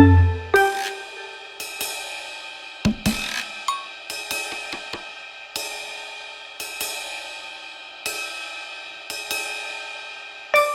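Background music: sustained tones with struck, ringing hits about once a second.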